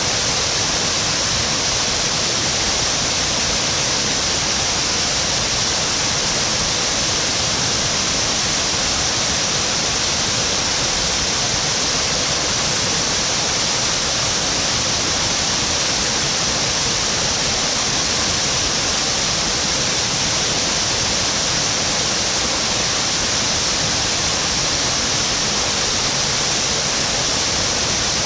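Waterfall pouring with a steady, even rush of water.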